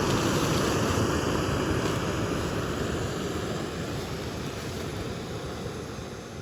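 Steady rushing noise that fades gradually.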